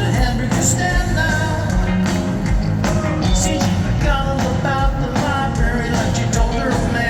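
Live rock-and-roll band playing with lead and harmony vocals singing over it.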